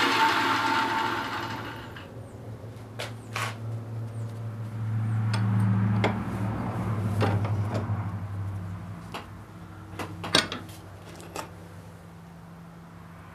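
A loud whirring hiss fades out over the first two seconds. Then come scattered light metallic clicks and taps as a nut and washers are handled on a steel shaft clamped in a bench vise, with a low hum swelling and fading in the middle.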